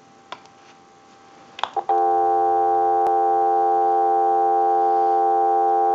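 A few clicks, then from about two seconds in a steady, unbroken telephone dial tone, heard through an amplified pickup on the handset's receiver.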